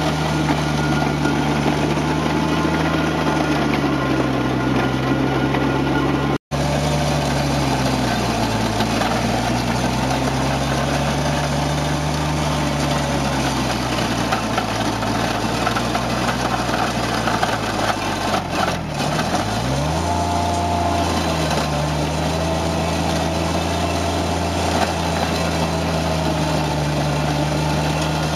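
Toro Dingo compact utility loader's engine running steadily while its Harley power rake works through loose gravel. The engine note sags and picks back up several times, dropping deeply for a moment about two-thirds of the way through before recovering. The sound cuts out for an instant about six seconds in.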